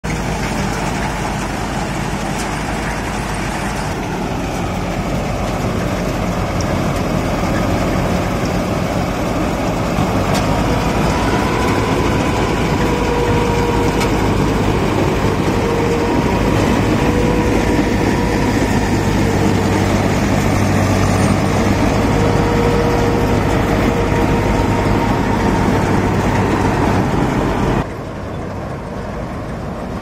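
Mahindra Balkar tractor-mounted combine harvester cutting rice: a loud, steady engine and machinery drone with a steady high whine over it. Near the end the sound drops suddenly to a lower level.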